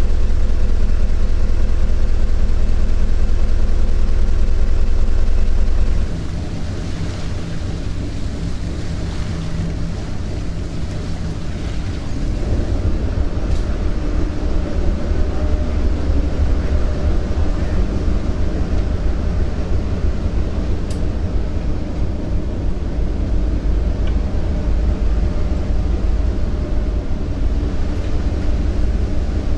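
Ferry engine running with a steady deep drone, loudest for the first six seconds beside the motor room. About six seconds in it cuts to a slightly quieter engine hum, and around twelve seconds to another steady drone with a higher hum as the ferry comes in to the pier.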